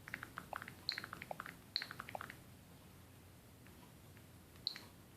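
Faint short clicks and ticks from the Nintendo Switch's own speaker, irregular for about two seconds, then a pause and one more near the end. These are signs that the water-damaged console is powered and playing sound while its screen stays dark.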